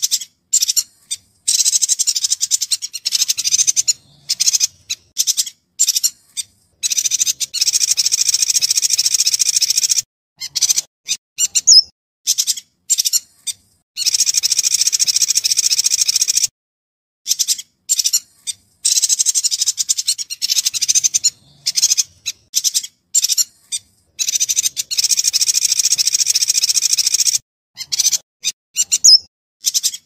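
Yuhina singing: long runs of rapid, high-pitched chattering song lasting a few seconds each, broken by short pauses.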